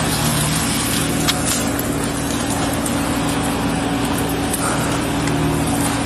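Skid-steer loader's engine running steadily, a constant low drone.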